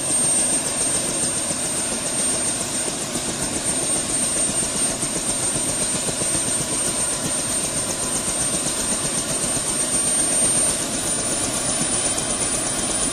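Small DC motor of a homemade model helicopter running steadily, spinning its rotor: a whirring hiss with a thin, high, steady whine.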